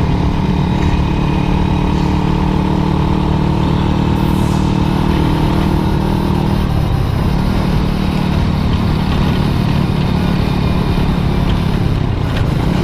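Motorcycle engine running steadily at cruising speed over a constant rush of noise; about seven seconds in its note breaks and dips briefly, then settles again.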